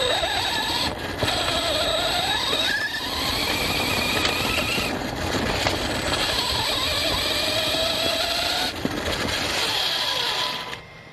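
ARRMA Fireteam 6S RC car driving off-road: its brushless motor whines, rising and falling in pitch with the throttle, over steady rough noise from the tyres and chassis. The sound drops away sharply near the end.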